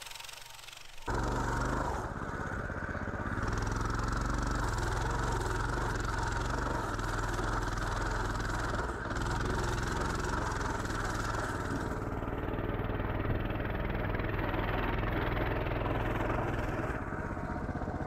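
Pit bike's small single-cylinder engine running steadily as it is ridden through deep snow, heard close up from about a second in, with a heavy low rumble.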